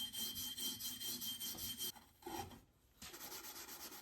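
Rapid back-and-forth abrasive scrubbing inside a motorcycle fork tube, cleaning out light corrosion that was making a tight new fork bushing stick. It pauses about two seconds in with a short clunk, then resumes.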